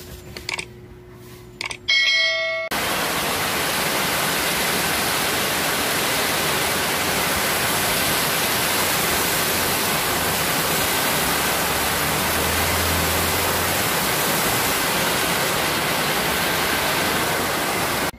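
Heavy rain falling on a polycarbonate roof, a steady loud hiss that starts abruptly about three seconds in. Before it, a short click-and-chime effect from the animated subscribe button.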